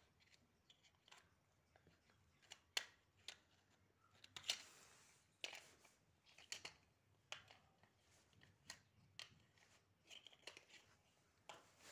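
Faint, irregular clicks and scrapes of large plastic building blocks and a plastic toy vehicle being handled by a small child, with a few sharper clacks among them.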